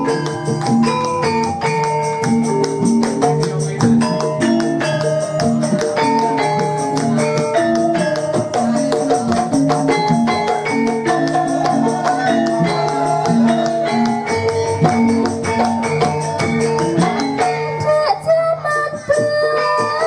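Javanese gamelan ensemble playing: metallophones ring a stepping melody over a steady pulse, driven by lively kendang drum strokes.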